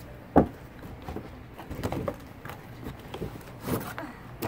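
Cardboard and clear-plastic doll packaging being handled and pulled open: a sharp knock about half a second in, then scattered clicks and rustles.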